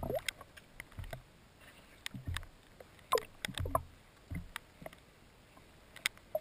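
Muffled underwater noise: a scatter of short sharp clicks and dull low thumps, a few with a short falling chirp.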